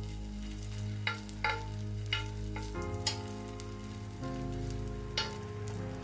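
Grated potato batter sizzling in hot oil in a frying pan as it is spooned in and spread, with several sharp clinks of the metal spoon against the pan.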